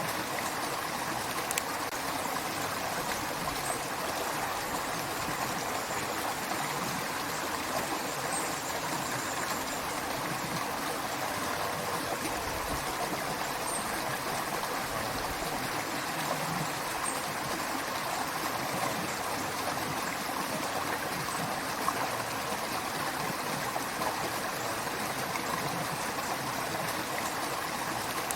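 Creek water running, a steady, unbroken flow of rushing and trickling water.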